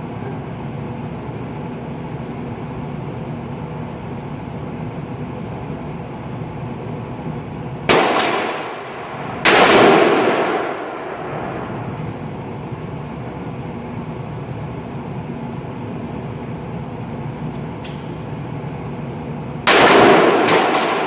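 Smith & Wesson M&P15 Sport II AR-15 rifle firing .223/5.56 rounds while the iron sights are zeroed: three single shots, two about a second and a half apart, then one more about ten seconds later, each trailing off over about a second, over steady background noise.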